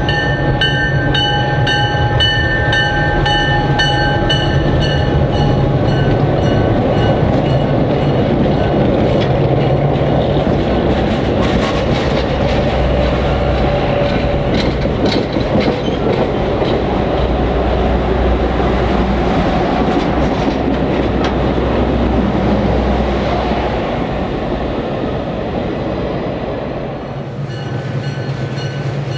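Ex-Canadian National GMD FP9 diesel locomotives pass with a deep engine hum and a ringing in a steady beat. Then the passenger cars roll by with a loud rumble and wheels clicking over rail joints, fading away. Near the end the beating ring and engine hum come back.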